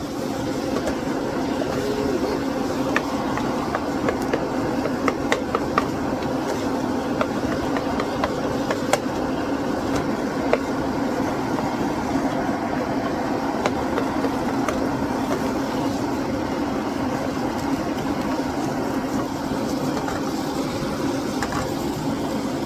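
Ground meat browning in hot pans: a steady sizzling rush with scattered sharp pops and clicks, most of them in the first half.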